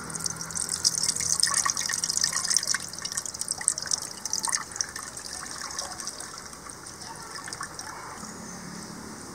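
Tamarind water poured from a steel bowl through the fingers into an aluminium pot, splashing and trickling, easing off about halfway through.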